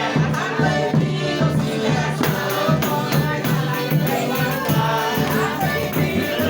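Festive folk song with voices singing over a steady shaken-percussion beat.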